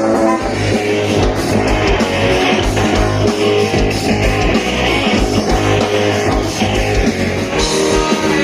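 Live rock band playing, with electric guitar over a steady drum beat.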